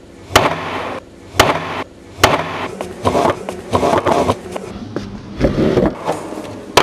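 Café clatter: several sharp knocks with scraping and rattling between them.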